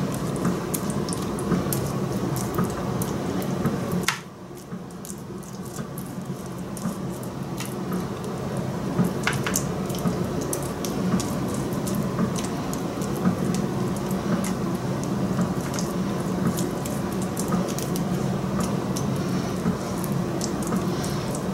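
Silicone basting brush dabbing marinade from a glass bowl onto raw racks of lamb on a metal sheet pan, with wet, sticky brushing and frequent small clicks and taps. A steady low hum runs underneath, and the sound drops off briefly about four seconds in.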